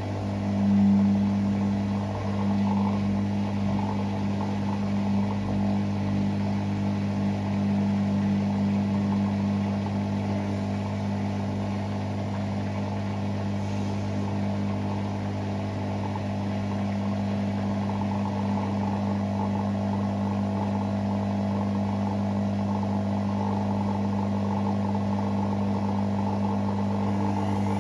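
Hoover Six Sportswear 1300 washing machine running through its Speed Wash cycle, a steady mechanical hum with no change in pitch.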